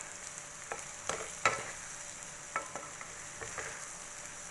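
Diced potatoes and beaten eggs frying in oil in a kadhai with a steady sizzle, while a wooden spatula stirs them. The spatula knocks against the pan about seven times, each knock ringing briefly.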